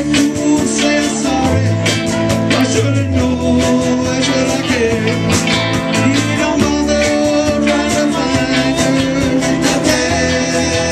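Live rock band playing: guitars, bass and drum kit, with a lead vocal sung over them.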